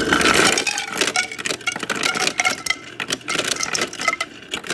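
Refrigerator door ice dispenser dropping ice cubes into a container: a rapid, uneven clatter of cubes knocking against the container and each other, over a low steady hum, stopping near the end.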